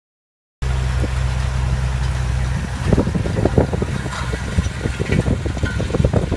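Tractor engine running steadily with a low hum while it pulls a Kongskilde Vibro Crop row-crop cultivator through soil. It starts about half a second in, and from about three seconds in irregular low thumps and rattles join it.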